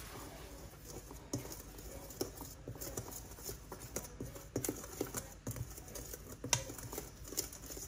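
Small wire whisk stirring a dry flour mix in a stainless steel bowl, with quick, irregular taps and scrapes of the wires against the metal.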